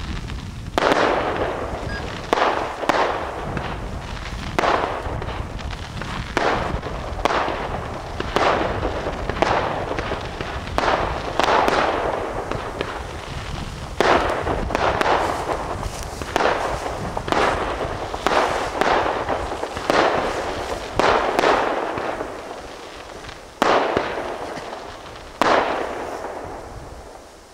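Tropic Fireworks TB 69 multi-shot firework battery firing shot after shot, about two dozen loud bangs spaced half a second to a second and a half apart. Each bang is followed by a hissing tail that fades over about a second. The last shots come near the end and the firing dies away.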